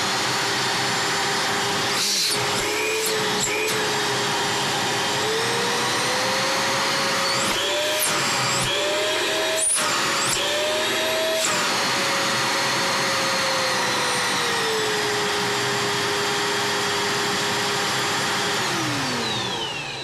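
Scarlett SC-280 1600 W bagless vacuum cleaner running. Its motor whine climbs over several seconds as the power regulator is turned up, then drops back, and near the end it is switched off and winds down smoothly. It runs cleanly without extraneous noise on new 608 bearings, the regulator now controlling the power after its triac was replaced.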